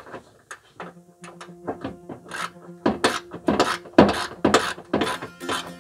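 Background music with a steady beat, coming in about a second in.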